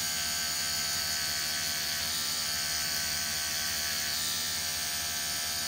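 Pen-style rotary tattoo machine running steadily as its cartridge needle works black ink into the skin, a constant, even hum.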